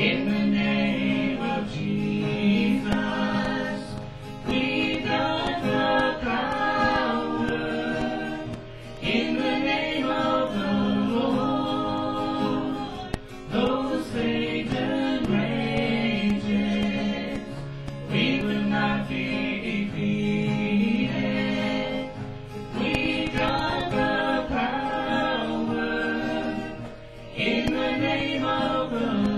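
Live southern gospel song: singers in harmony with acoustic guitar accompaniment. The lines are sung in phrases a few seconds long, with short breaks between them.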